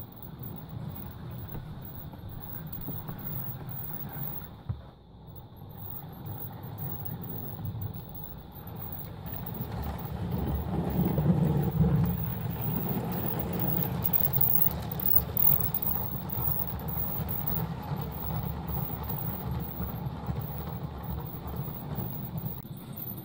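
Motorised LEGO train running on plastic LEGO track: a steady rumble of wheels and motor that builds to its loudest about eleven seconds in as the locomotive passes close by, then carries on as the carriages go past.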